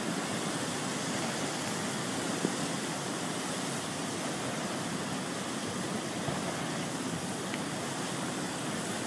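Flash floodwater rushing across a dry riverbed: a steady, even rushing of water.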